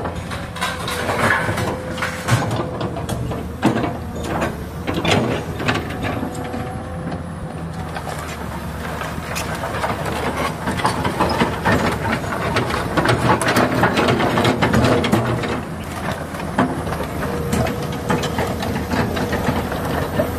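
Diesel engine of a hydraulic crawler excavator running steadily, with frequent sharp knocks and clanks over it. A steady note sits above the engine early on and comes back later, and the engine grows louder for a few seconds in the middle.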